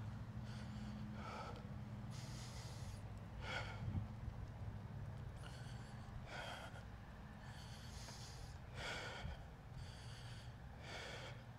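A person breathing hard while walking, catching their breath after a running interval: short hissy breaths, about one a second, with a longer pause around the middle.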